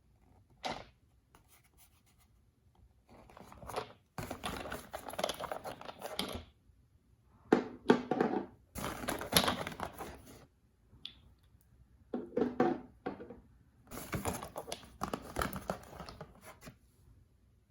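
Crinkling and tearing of plastic packaging by hand, in four or five bursts of a few seconds each with short pauses between.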